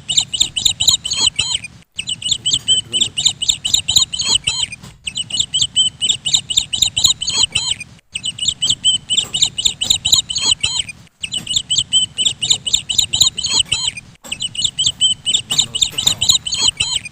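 Rapid, high-pitched bird chirping, repeated in bouts of about three seconds broken by short silent gaps at regular spacing, like a looped recording.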